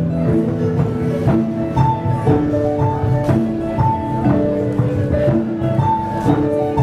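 Live Celtic folk tune led by harp, with struck notes over a steady, lively beat.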